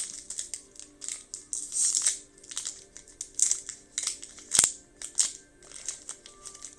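Crinkling and rustling of a foil booster-pack wrapper and trading cards being handled, in repeated short bursts, with one sharp click about halfway through.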